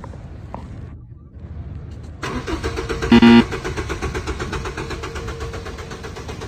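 Car engine starting about two seconds in and then running with a rapid, even pulsing. About a second after it catches there is a brief loud pitched tone.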